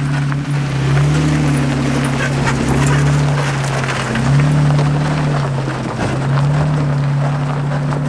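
Background music with long held low notes that change pitch every couple of seconds, over irregular crunching from a Jeep and camper trailer rolling along a gravel trail.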